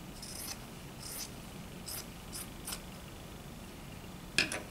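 Scissors snipping through cotton fabric: about five short, crisp snips over the first three seconds, then a sharper click near the end.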